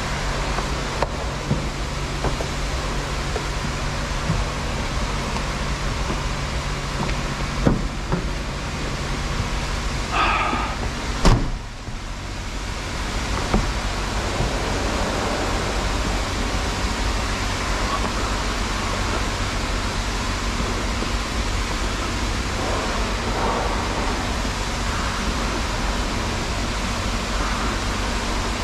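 A steady hiss over the low hum of an idling engine, with a few faint clicks and one sharp knock about eleven seconds in.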